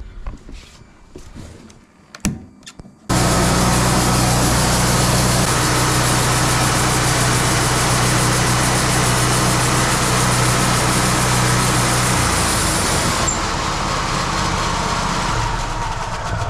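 Wood-Mizer LT50 band sawmill starting up about three seconds in, its engine running with the band blade spinning free and a loud, steady hiss. About twelve seconds in the engine note drops, the blade's hiss falls away a moment later, and the sound winds down. A few clicks and a sharp knock come before the start.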